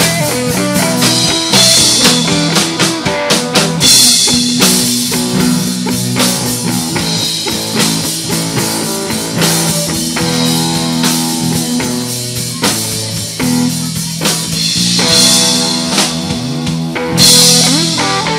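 Live instrumental rock jam: electric guitar, bass guitar and drum kit playing together, with several cymbal crashes, the loudest near the end.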